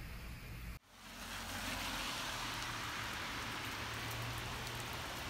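Steady rain falling on a wet street and pavement, heard as an even hiss. It cuts out abruptly just under a second in, then comes back louder and brighter.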